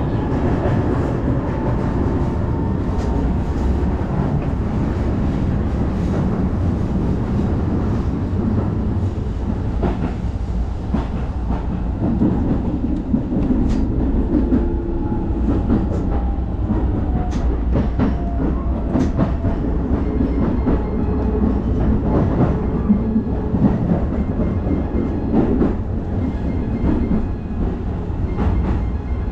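Keisei Line electric commuter train running along the track, heard from inside the carriage: a steady rumble with scattered sharp clacks of the wheels over rail joints.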